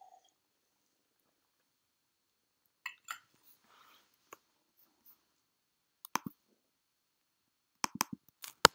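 Scattered short, sharp clicks against near silence: a couple about three seconds in, a pair around six seconds, and a quick run of four or five near the end, the last the loudest.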